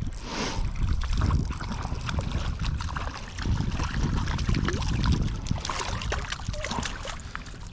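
River water sloshing and trickling, with irregular small splashes.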